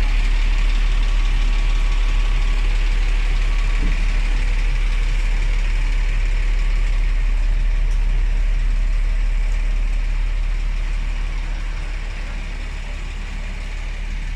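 A truck engine idling steadily with a deep, low rumble, easing off slightly near the end.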